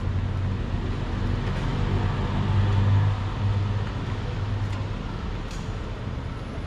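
A motor vehicle passing on a rain-wet street: a low engine hum and tyre hiss that swell to their loudest about halfway through, then fade.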